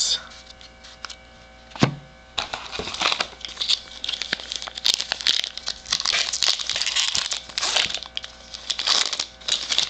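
Foil wrapper of a Topps baseball-card jumbo pack crinkling and tearing as it is handled and ripped open, a dense irregular crackle starting about two and a half seconds in, after a short knock.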